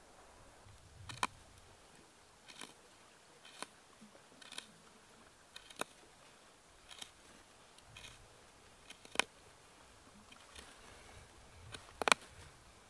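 Short, sharp clicks and knocks, roughly one a second, from hand work on the green-wood poles and metal blade of a bucksaw being built. The loudest two come about nine and twelve seconds in.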